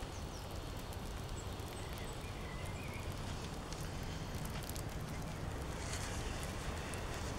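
Quiet garden ambience: a steady low hum with a few faint bird chirps about two and a half seconds in.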